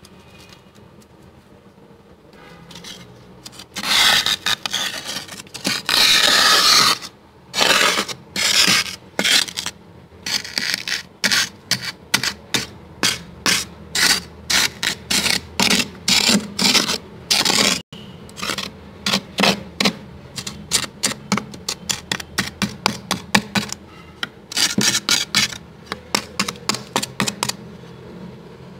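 Thick frost built up inside a freezer being scraped: a few long scrapes starting about four seconds in, then quick short strokes at about two a second.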